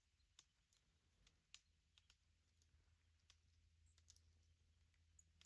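Near silence with a dozen or so faint, sharp clicks at irregular intervals.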